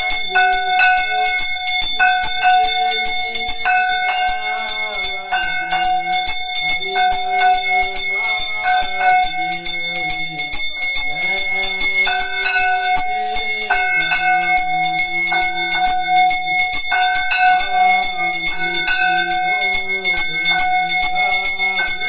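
Brass puja hand bell (ghanti) rung fast and continuously for the aarti, a steady shimmering ring, over a lower melody that steps in pitch every second or two.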